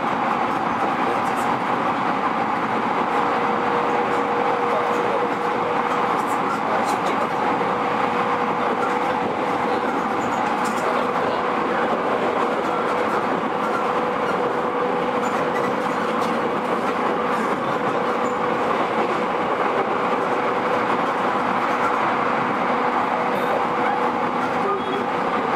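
JR East E231 series electric train running along the line: steady rumble of wheels on rail with faint clicks. A steady tone comes in a few seconds in and holds.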